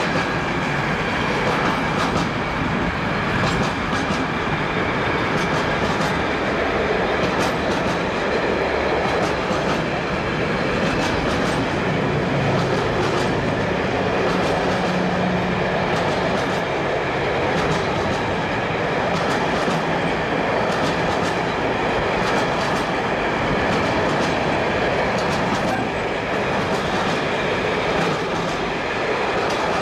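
Container freight train's wagons rolling past, a steady rumble with irregular clatter from the wheels on the rails.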